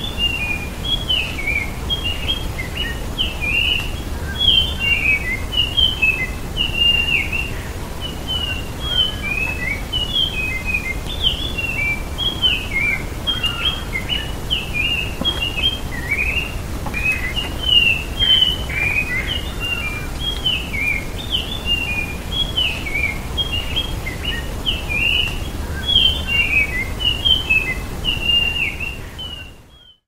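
Spotted ground thrush singing: a continuous run of short, quickly varied whistled notes and phrases, fading out near the end, over a steady low background rumble.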